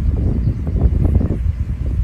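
Wind buffeting the microphone: a low rumble with irregular gusting surges.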